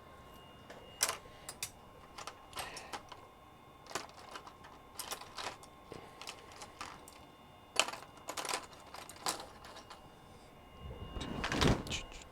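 Small hand tools clicking and tapping irregularly during fine electronics repair work, with a faint steady high-pitched tone underneath and a louder rustle near the end.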